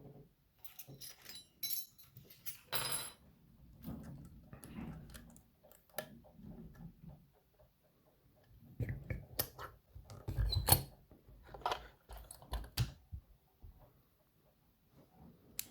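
Scattered small clicks, clinks and rustling of metal tools and a dimple padlock being handled as it is taken apart, with a run of louder knocks and clicks in the second half.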